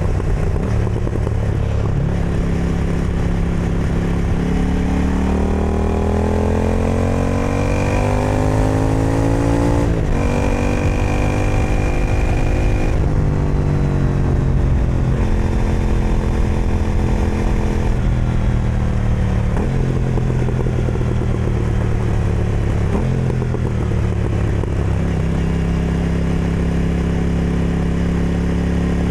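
KTM Duke 990's parallel-twin engine breathing through an Austin Racing exhaust. It rises in pitch under acceleration, shifts sharply about ten seconds in, then eases off and settles through several more gear changes and steady cruising.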